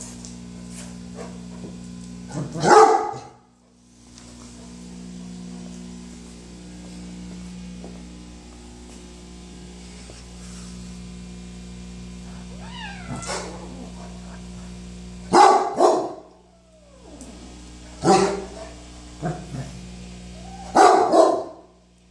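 Dog barking in a series of separate loud barks, one early and then a run of them in the second half, over a steady low hum.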